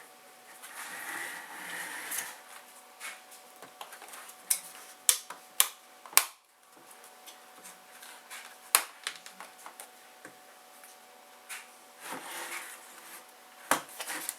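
Plastic parts of a car instrument cluster being handled and the black bezel pressed on: scattered sharp clicks and taps of clips and plastic, with light rustling between them. The loudest click comes about six seconds in.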